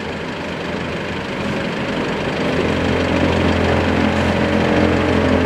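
A vehicle engine idling nearby, a steady hum that grows louder about halfway through.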